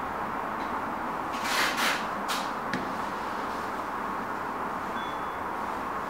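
Steady background hiss with a few brief rustling, scraping handling noises about one and a half to two and a half seconds in, followed by a single sharp click.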